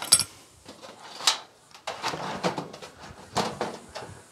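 Thin sheet-metal dryer cover being handled and set into place: a sharp metallic clink at the start and another about a second in, then irregular clatters and scrapes of the panel against the dryer's metal body.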